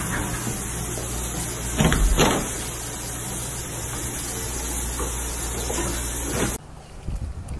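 Steady rush of water running from a bathtub faucet, with a couple of loud thumps about two seconds in; it cuts off abruptly about a second before the end.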